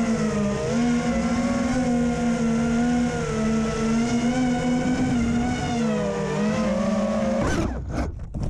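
Five-inch FPV quadcopter's 2207.5 1900 KV brushless motors and propellers whining steadily, the pitch wavering slightly with throttle. About seven and a half seconds in, a few sharp knocks as the drone crashes into tall grass, and the motor sound cuts off.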